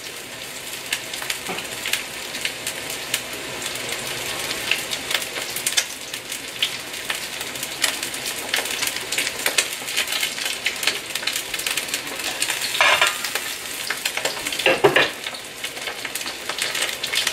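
Sliced, marinated chicken searing in hot vegetable oil in a steel wok: a steady sizzle full of crackles and pops, the meat left undisturbed to brown before the first stir.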